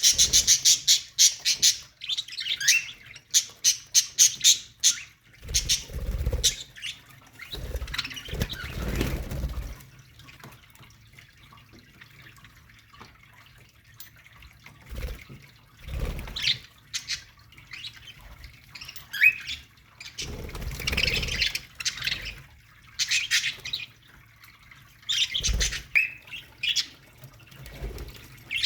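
A colony of budgerigars chirping and squawking in bursts, opening with a fast run of repeated chirps, with occasional low thuds among the calls.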